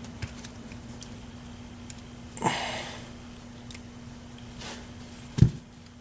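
Faint handling noises from working on a euro profile lock cylinder with small tools: a few light ticks, a short breathy sniff about two and a half seconds in, and a sharp knock near the end, over a steady low hum.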